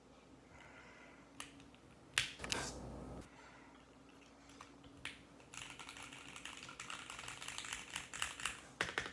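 Keychron Q1 mechanical keyboard being typed on: a few scattered key clicks with a louder knock and a brief rustle about two seconds in, then rapid, continuous typing from about halfway through.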